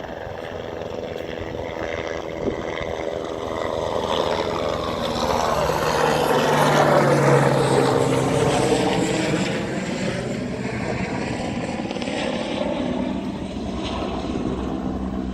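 An aircraft passing overhead. It grows steadily louder to a peak about halfway through, then fades a little.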